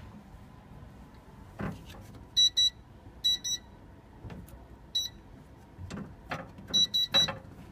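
Keypad of an electronic in-room safe beeping as its buttons are pressed: eight short, high-pitched beeps, in pairs twice, then a single beep, then three in quick succession near the end, with a few soft knocks of handling in between.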